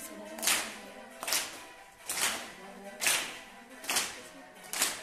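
Sharp percussive beats repeating evenly, a little more than one a second, over faint music with held tones: rhythmic dance accompaniment.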